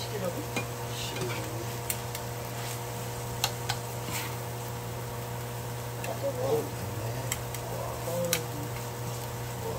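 A steady low hum with scattered sharp clicks and taps, a utensil knocking against the frying pan as kimchi and vegetables are stir-fried.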